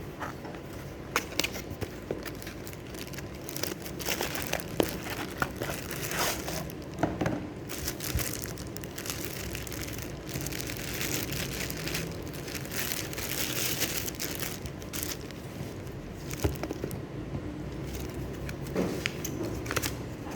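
Unboxing a floodlight: packaging crinkling and rustling as it is handled and unwrapped, with irregular small clicks and knocks throughout.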